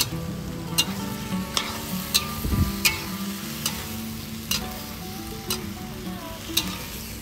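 Beef and pineapple sizzling in a black wok while a metal spatula stirs and scrapes, clacking against the pan a little more than once a second.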